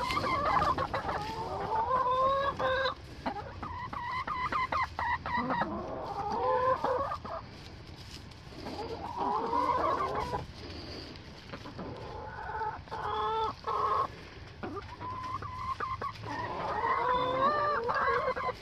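Domestic hens clucking and calling in repeated bouts of a few seconds each, with short pauses between.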